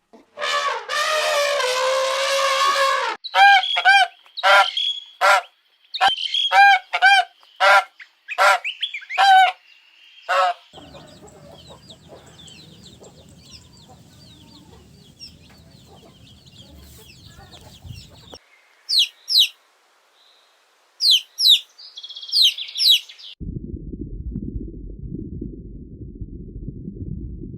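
Domestic fowl calling: a long drawn-out call, then a quick run of short, sharp pitched calls, followed by quieter bird chirps. A low rumble takes over near the end.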